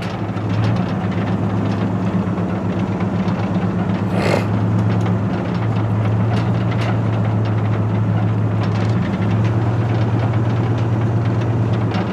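Moving vehicle's engine and road noise: a steady low drone, with scattered light rattles and a short rushing hiss about four seconds in.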